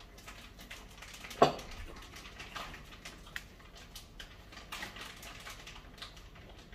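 Scattered small clicks and knocks of a spoon against a bowl and dishes while eating, with one sharp louder knock about one and a half seconds in.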